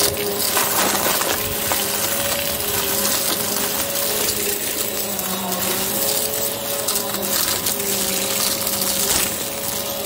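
Hoover upright vacuum cleaner running with a steady hum that wavers slightly in pitch, its brushroll sucking up a pile of fluff mixed with small hard bits that crackle and rattle through the nozzle.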